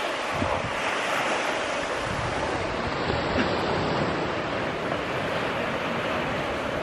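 Ocean surf washing and breaking in a steady rush, with wind rumbling on the microphone.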